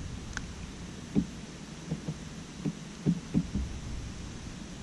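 Soft, low, irregular thumps, about half a dozen, with one sharp click near the start: a just-caught bass being handled and unhooked on a plastic kayak. A low rumble runs underneath.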